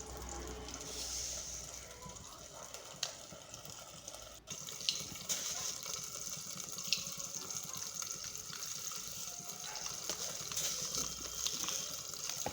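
Hot coconut oil sizzling in a pan, with a few scattered sharp pops as mustard seeds are tempered in it.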